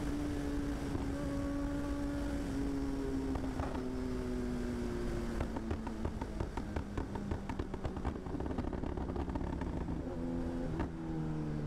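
Sport motorcycle engine running under way, seen from the rider's seat. Its note sinks slowly as the bike eases off, then comes a run of rapid exhaust crackles, and near the end the pitch drops to a lower note as it slows for traffic.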